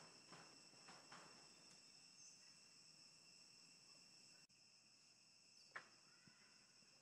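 Faint forest ambience: a steady, high insect drone of several continuous shrill tones, with a few soft rustles and a short sharp click about six seconds in.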